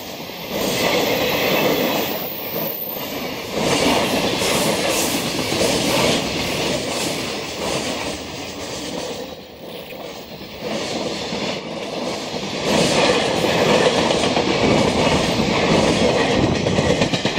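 A JR Freight container train's flatcars rolling past close by, steel wheels clattering over the rail joints in a repeating clickety-clack over a steady rumble. It gets louder for the last few seconds.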